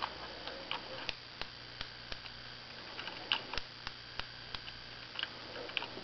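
Clockwork mechanism of a Lehmann tinplate wind-up toy clicking in an even rhythm, about three sharp clicks a second.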